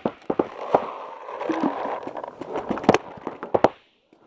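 Paintball markers firing: scattered sharp pops at irregular intervals, some in quick pairs, over a steady rushing noise.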